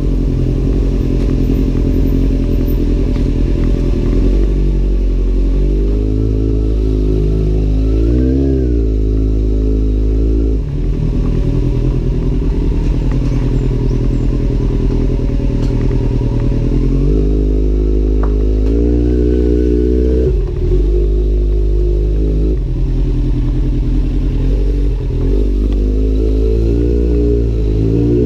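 Kawasaki Z800's inline-four engine through an Arrow aftermarket exhaust, ridden, its revs rising and falling. The sound dips briefly about ten and about twenty seconds in, as the throttle is closed or a gear is changed.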